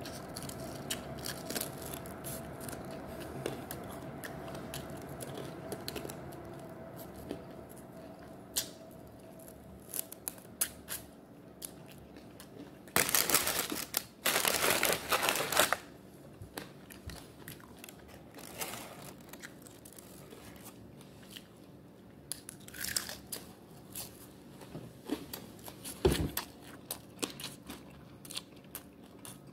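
Close-miked eating of chicken wings: biting, chewing and wet mouth clicks and smacks, mostly quiet. About thirteen seconds in comes a loud rustling crackle lasting about three seconds, with the microphone up against jacket fabric, and a few sharp clicks follow later.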